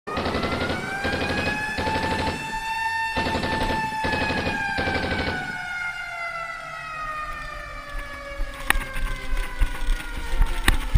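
A siren rising briefly in pitch and then slowly winding down, with six short bursts of rapid gunfire over it in the first five seconds. Sharp clicks come in near the end.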